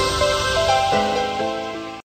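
Electronic intro music with a stepped synth melody over a low pulse, fading out near the end.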